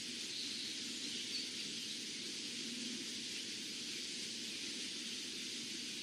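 Steady outdoor background hiss with no distinct event, a faint brief sound rising just above it about a second and a half in.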